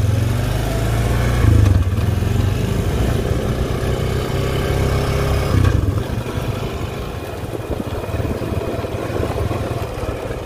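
Four-wheeler ATV engine running just after starting. It revs up briefly about a second and a half in and again about six seconds in, then keeps running as the quad pulls away.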